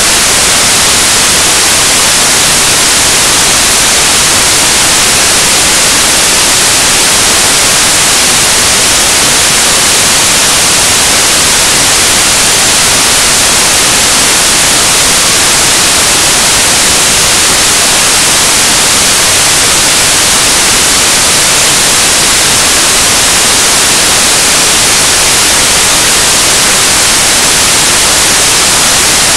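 Loud, steady static hiss, like white noise, unchanging throughout, with no other sound heard above it.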